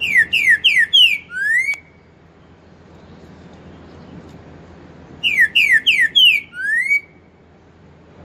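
Green-winged saltator (trinca-ferro) singing its four-note song with the 'boi' ending, of the pantaneiro type, twice. Each phrase is four quick down-slurred whistles followed by one longer rising whistle.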